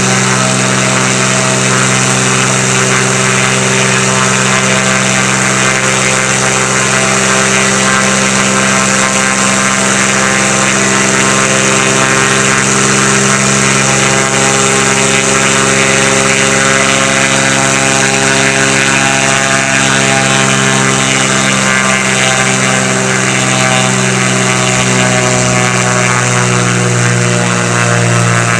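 Piston engine and propeller of a light single-engine airplane running steadily on the ground, an even drone whose pitch shifts slightly about twenty seconds in.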